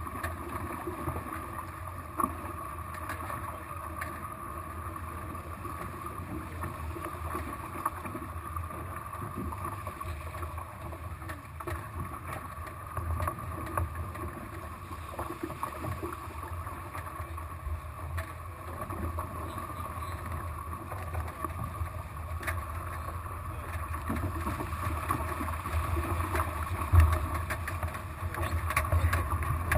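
Water rushing and splashing along the hulls of a small catamaran sailing through chop, over a steady low rumble. Now and then there are short sharp slaps, and it grows louder near the end, with a hard slap a few seconds before the end.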